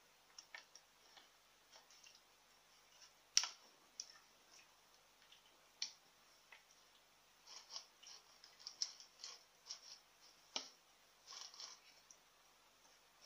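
Faint sounds of eating by hand: fingers picking at fried sardines on a plate, with scattered small clicks and smacks, a sharper click about three and a half seconds in and another near ten and a half seconds, and a denser run of clicks in the second half.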